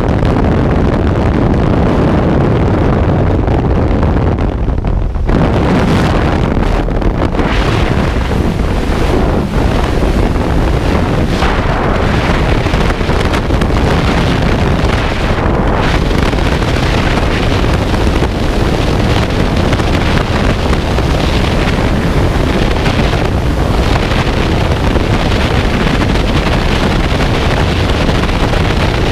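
Aircraft engine and propeller blast at an open jump door, giving way about five seconds in to loud, steady freefall wind rushing over a body-mounted camera's microphone as the skydivers fall.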